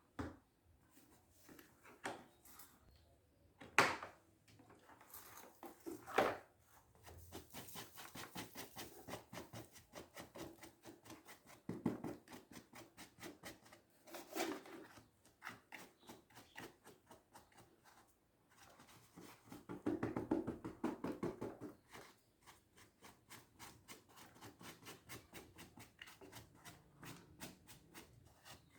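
Parts of a vacuum cleaner being handled during cleaning: scattered knocks and clicks among a run of small ticks and rubbing, with no motor running.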